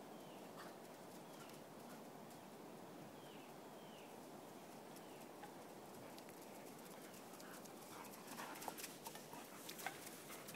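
Two dogs' paws galloping and slapping on wet sand, faint at first and growing into sharp, louder footfalls from about eight seconds in as the dogs arrive close by. Under it is a faint steady wash of open-beach air, with faint high falling chirps repeating in the first half.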